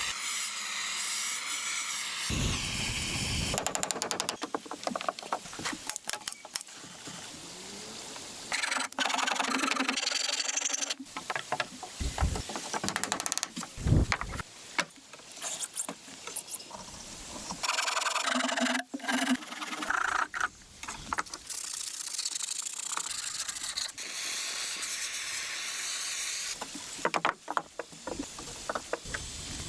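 Hand tools working wood: scraping, rubbing and sharp knocks that change abruptly every few seconds.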